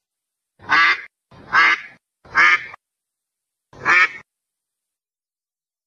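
Mallard duck quacking four times: three quacks in quick succession, then a fourth after a short pause.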